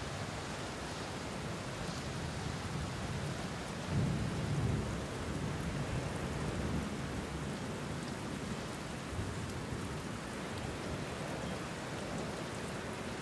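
Steady rushing noise of rain and wind in stormy weather, with a louder low rumble about four seconds in.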